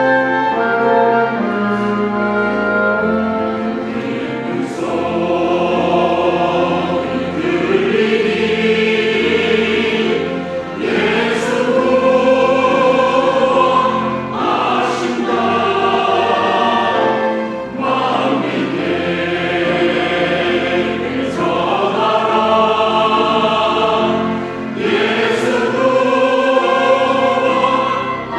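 Church choir singing a sacred anthem in long, sustained phrases with vibrato, over instrumental accompaniment.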